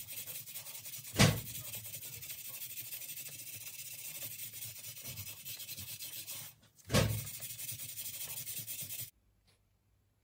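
Fine wire brush scrubbed by hand along a rusty steel bicycle rim to take the rust off: a steady, rapid scratching. Two sharp knocks come about a second in and about seven seconds in, and the scrubbing stops about nine seconds in.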